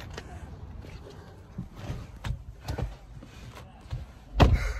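Light knocks and rustling as someone climbs into a car, then a single heavy thump near the end as the car door is shut.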